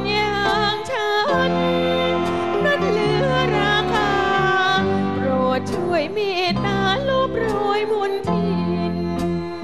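Big band with saxophones and violins playing a slow Thai song, with a woman singing over it in a wavering, ornamented line.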